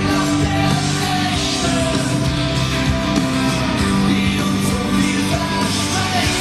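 Loud rock music playing with a full, dense sound.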